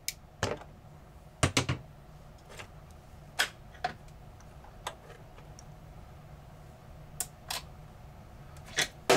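About a dozen scattered, sharp clicks and light taps, some in quick pairs, of a hand tool and screw knocking against the sheet-metal chassis and plastic housing of an old computer's monitor assembly as its last screw is backed out.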